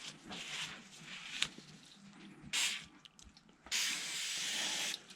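Aerosol brake cleaner hissing from the can in two sprays, a short one and then a longer one of about a second near the end, cleaning grease off a torn CV axle boot.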